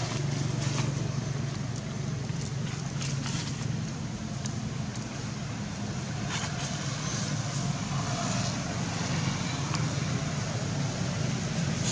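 A steady low motor hum under a wash of noise, with a few faint clicks and rustles scattered through it.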